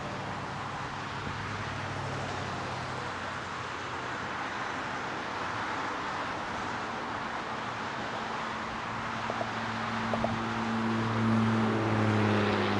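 Road traffic: a steady hiss of passing tyres and wind, with a vehicle's engine hum that grows louder over the last few seconds.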